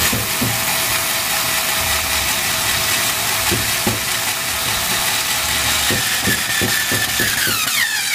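3.6 V cordless screwdriver motor running under load as it drives a screw into wood, with scattered clicks; its whine falls in pitch near the end. The tool is straining and cannot drive the screw fully home.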